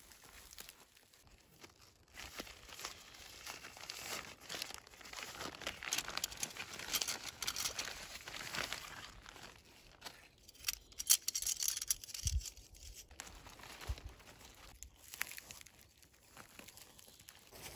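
Nylon tent fabric rustling and crinkling as it is handled and pulled over its frame, with a quick run of sharp clicks a little past the middle that is the loudest moment.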